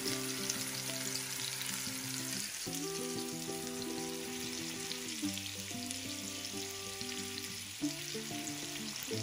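Spice-coated salmon pieces sizzling steadily in hot oil in a frying pan, with background music of slow, sustained chords that change every few seconds.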